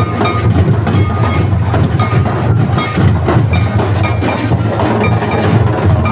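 Traditional Santal dance drumming: hand-carried double-headed barrel drums and a large kettle drum beaten in a fast, steady rhythm, with short high ringing notes recurring over the beat.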